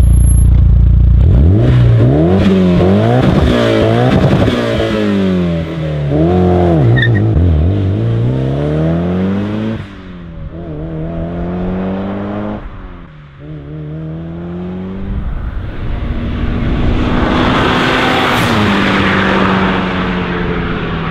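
Mitsubishi Lancer Evolution VII's turbocharged four-cylinder engine holding a steady note for about a second, then accelerating hard away, revs climbing and dropping through a string of quick gear changes and fading with distance. Near the end a steadier engine drone comes up under a rising rushing noise.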